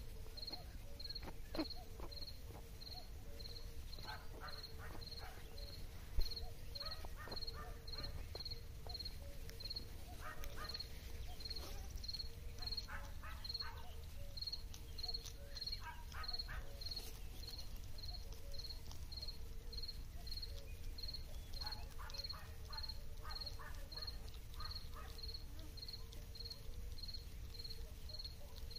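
A cricket chirping steadily, about one and a half chirps a second, over short bursts of soft clicking every few seconds from a hedgehog chewing and snuffling as it forages in the grass. One brief thump about six seconds in.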